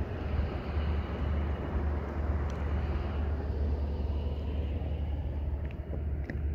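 Honda four-stroke outboard motor running steadily as a small boat moves across the river.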